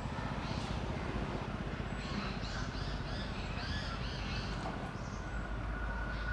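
A bird calling in a quick run of short arched notes, about three a second, over a steady low rumble.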